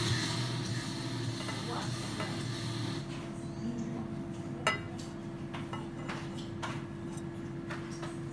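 Light metallic clicks and clinks as a Spartan silver ashtray is handled and turned in the fingers, with one sharper click about four and a half seconds in. A steady low hum runs underneath, and a hiss fades out over the first few seconds.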